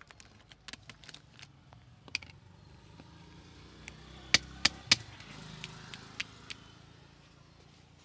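A run of small sharp clicks, then three loud sharp snaps in quick succession about halfway through, over a low rumble of passing road traffic that swells briefly after them.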